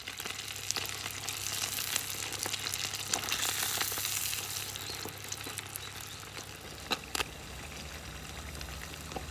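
Floured donko fish deep-frying in a small pot of hot oil: a steady, dense crackling sizzle, strongest about halfway through, with two sharp clicks about two-thirds of the way in.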